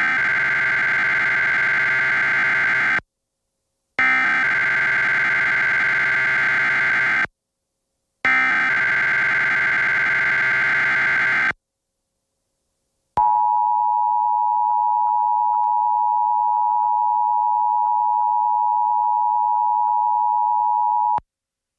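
Emergency Alert System SAME header: three bursts of warbling data tones, each about three seconds long with a short gap between them, encoding a required weekly test. Then the EAS two-tone attention signal, held steady for about eight seconds and cut off sharply.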